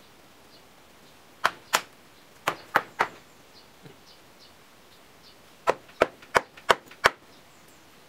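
Sharp hammer blows on wood, as a wooden frame is nailed together: a run of two strikes, then three, then five quicker ones near the end.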